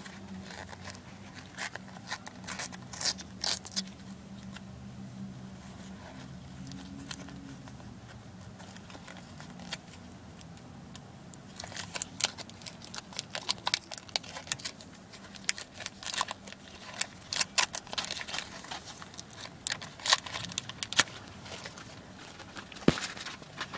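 A sticker pack's wrapper crinkling and tearing as it is pulled open by hand. It gives scattered crackles, sparse at first and much busier from about halfway through.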